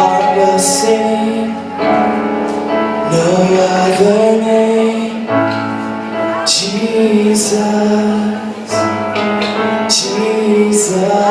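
Christian worship band playing live, with male and female voices singing long held notes over the instruments.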